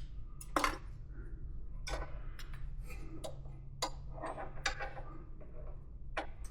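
Scattered light metallic clinks and clicks of small metal hardware being handled while a hook is hunted for, over a steady low hum.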